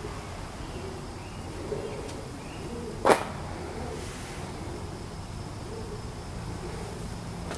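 Pigeons cooing over and over, a run of soft, low, rounded coos. A single sharp snap cuts in about three seconds in.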